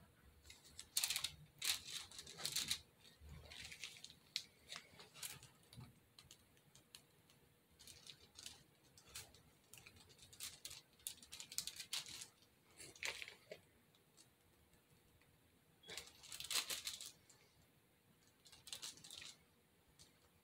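Plastic piping bag crinkling and rustling in faint, irregular bursts as it is squeezed to pipe spackle.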